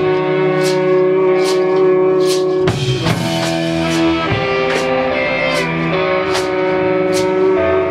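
Live band music: long, ringing guitar chords over a slow, even beat of high strokes, about one a second.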